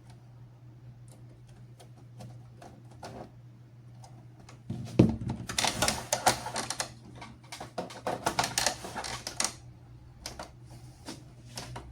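Scattered clicks, then about five seconds of dense plastic-and-metal clatter in the middle, then a few more clicks, from an Epson L3150 inkjet printer during repair of its faulty encoder sensor.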